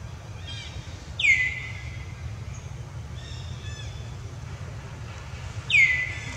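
A bird calling: two loud whistled calls that each slide quickly down in pitch, about a second in and again near the end, with quieter short chirps between them, over a steady low background rumble.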